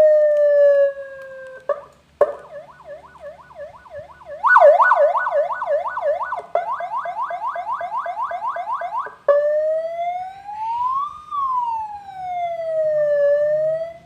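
A 100-watt six-tone electronic siren module playing through a horn loudspeaker, switched through its tones at turned-down volume. It starts with a slowly falling tone, then gives fast repeating up-sweeps about four a second, and from about nine seconds in a slow rising-and-falling wail.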